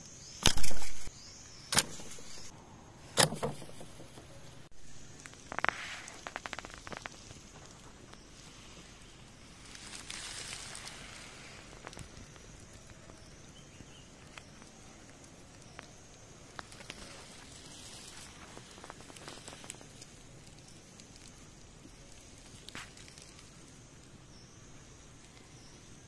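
Dry leaf litter and twigs rustling and crackling underfoot and under hand, with one loud knock about half a second in and two sharper clicks in the next few seconds.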